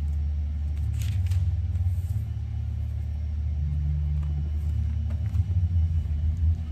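A steady low mechanical rumble, with a brief faint scratchy noise about a second in.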